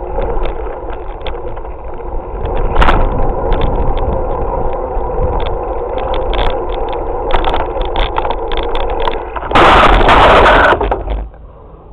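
Bicycle ride heard through a GoPro action camera: steady wind and tyre rumble with frequent knocks and rattles. About ten seconds in comes a loud harsh rush lasting about a second, then the noise drops away suddenly.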